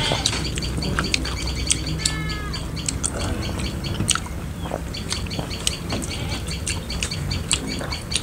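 Eating by hand: chewing, lip smacks and fingers mixing rice and curry on metal plates, heard as many short clicks. Birds chirp in the background with a steady high repeating chirp and a short call about two seconds in.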